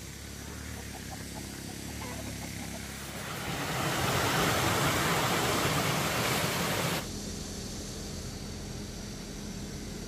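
Rushing water of a small mountain stream cascading over rocks: an even rush that comes in about three seconds in and cuts off suddenly about seven seconds in. Before and after it there is only faint outdoor background.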